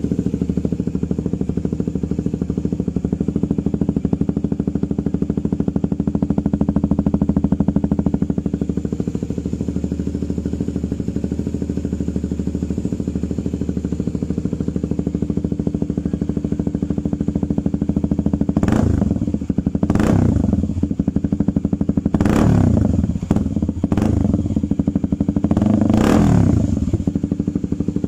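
Kawasaki Z250 SL's single-cylinder engine idling through a Vmax aftermarket muffler with the silencer (dB killer) removed. From about two-thirds of the way in, the throttle is blipped about six times, each rev rising and falling quickly.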